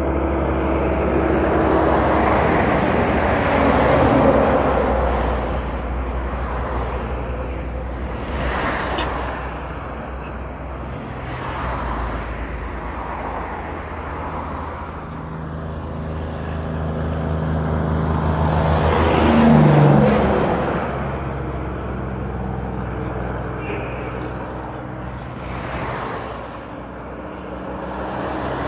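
Heavy trucks' diesel engines running on a highway, a steady low drone that swells twice as trucks pass. A brief hiss about a third of the way in.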